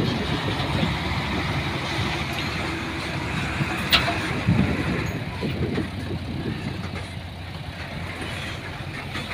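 Heavy diesel earthmoving machinery running steadily with a low engine rumble, and a single sharp click about four seconds in.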